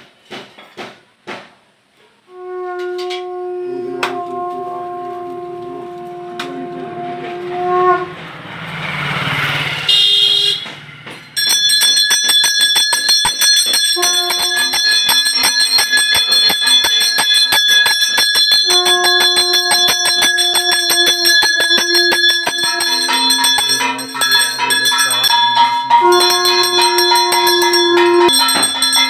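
Conch shell (shankha) blown in long held notes, as in a Hindu puja arati. About eleven seconds in, rapid continuous bell ringing joins it and carries on under further conch blasts. Just before the bells there is a brief rush of noise.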